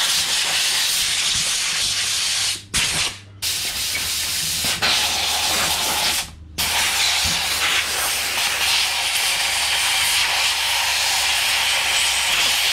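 Compressed-air blow gun blasting dust out of an angle grinder's housing: a loud, steady hiss that cuts off for a moment about three seconds in and again a little past six seconds.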